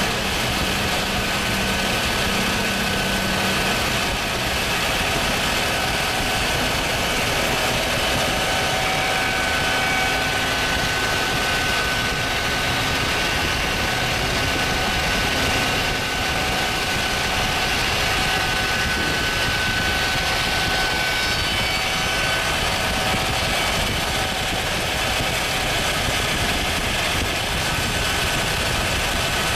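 Cantek rotary milling planer running, its rotary cutterhead cutting stock: a steady, loud mechanical noise with a high, steady whine through it.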